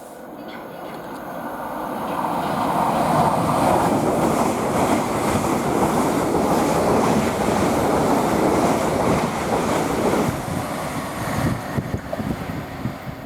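Two coupled South Western Railway Class 450 electric multiple units running through the station at speed without stopping. The wheels on the rails build to a loud, steady rush, turn to uneven clatter as the last cars go by, and fall away sharply near the end.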